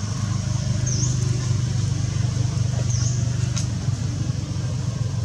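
A steady low motor hum, with a short high chirp that repeats about every two seconds and a single click near the middle.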